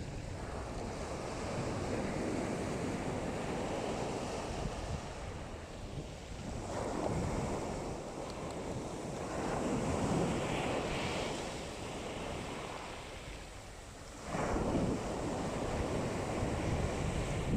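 Black Sea waves washing onto a pebble shore, the rush of surf swelling and falling back every few seconds.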